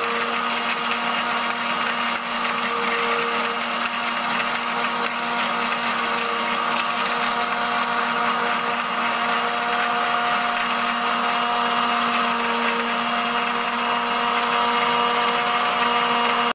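Mixer grinder motor running steadily with a constant whine, blending curd, sugar and ice cubes in its large stainless-steel jar. It stops abruptly at the end.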